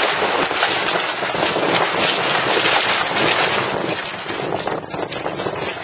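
Wind buffeting the microphone aboard a sailing dinghy under way, a dense steady rush that eases slightly about four seconds in.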